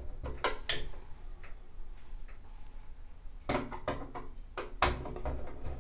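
Hand screwdriver turning a screw into a bathroom exhaust fan's sheet-metal housing: short clicks and scrapes, a few under a second in and a busier run from about three and a half seconds in.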